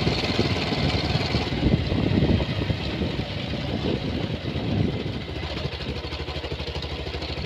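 Motorcycle engine running at low speed while riding, a steady low exhaust beat under road and wind noise.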